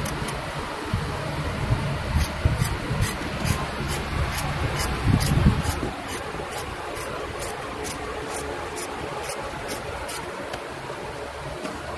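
Pointed metal tool scratching patterns into the lacquer of a turned wooden piece: quick, short scraping strokes about three a second, over a steady background hiss.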